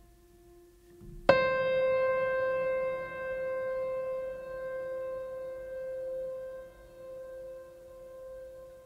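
Mellow instrumental music: a soft held tone, then a single piano note struck about a second in that rings on and slowly fades.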